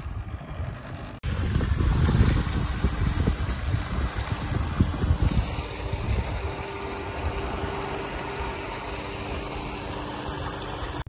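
Electric irrigation surface pump, fed by borehole lift pumps, running just after start-up as water comes through to it: a loud, steady rushing noise that begins suddenly about a second in, with a faint steady hum settling in about halfway through.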